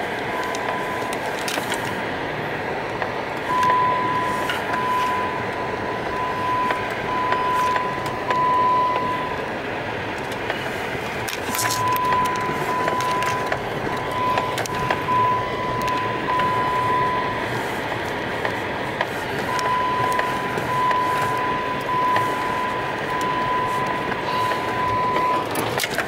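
Vehicle cab noise while driving slowly over a snow-covered track, with scattered knocks and bumps. A high electronic beep sounds about once a second in three runs of roughly six seconds each.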